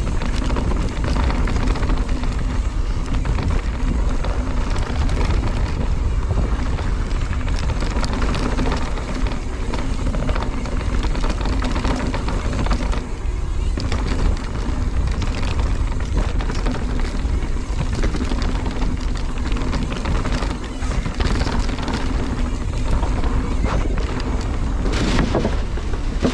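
Mountain bike descending a rough dirt trail: wind rushing over the microphone, tyres crunching over dirt and rocks, and the bike rattling over bumps. About a second before the end the tyres clatter onto a wooden boardwalk.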